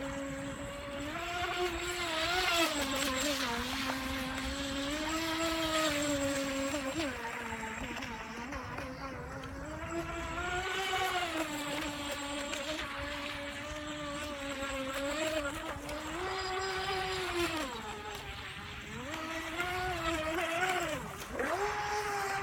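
Atomik Barbwire RC racing boat's brushless electric motor whining as the boat runs across the water, its pitch rising and falling several times with the throttle.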